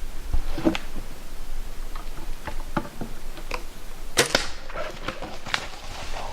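Bow shot at a black bear: a sharp double crack of string release and arrow strike about four seconds in, among scattered small clicks and rustles.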